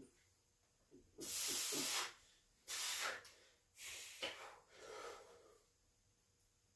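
A man breathing hard through his teeth while straining under a heavy bench press: four forceful, hissing exhales, the first and loudest lasting nearly a second.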